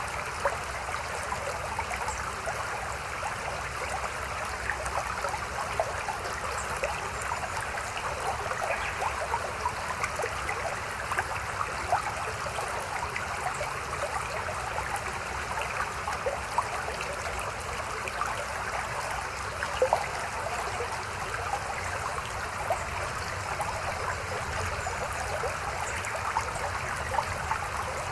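A small river babbling steadily: an even rush of running water, full of small splashes and gurgles.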